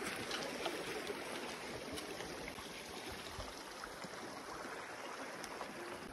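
Steady rushing of a mountain stream, an even wash of water noise with a few faint clicks over it.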